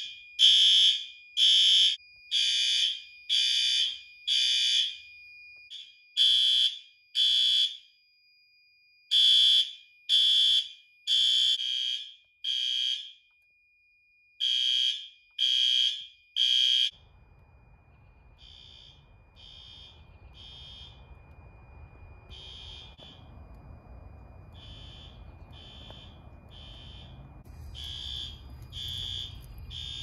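Fire alarm horn/strobe sounding the evacuation signal after a manual pull station has been activated: loud, high-pitched horn blasts about a second apart, broken by longer pauses, over a steady high tone. After about 17 seconds the blasts are quieter, with a low rumble underneath.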